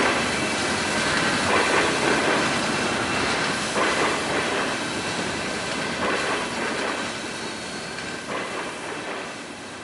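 A train rolling along the rails, its wheels knocking over rail joints about every two seconds, growing fainter toward the end.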